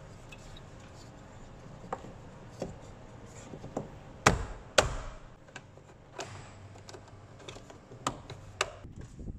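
Sharp plastic clicks and taps as a 2012 Jeep Wrangler rear door trim panel and its armrest trim piece are pressed and snapped into place by hand. The two loudest snaps come just past the middle, half a second apart.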